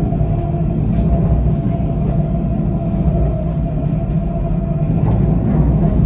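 Tram running on its rails, heard from inside the car: a steady low rumble of the wheels and running gear with a thin steady whine, and a brief high chirp about a second in.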